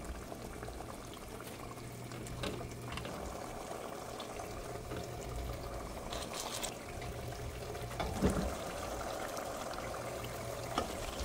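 A thick spiced masala gravy bubbling steadily in a cooking pot while hilsa fish pieces are lifted out of it with a spoon, which knocks lightly against the pot a few times.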